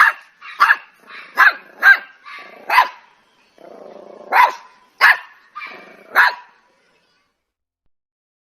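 A dog barking: about eight sharp barks spaced irregularly, with a short low growl shortly before the middle of the run.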